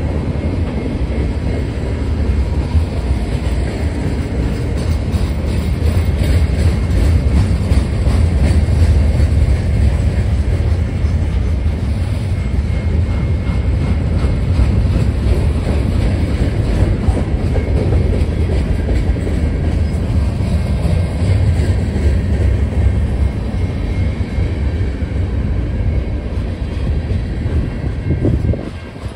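Freight train cars (covered hoppers and tank cars) rolling past close by: a deep, steady rumble of steel wheels on the rails. The level drops suddenly shortly before the end.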